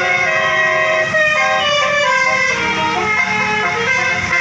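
A bus's telolet horn playing a melody: several horn notes sound together and step up and down in pitch throughout, over a low engine rumble.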